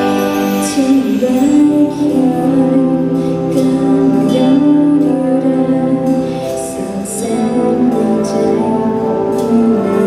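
A woman singing a slow song with a wind band accompanying her.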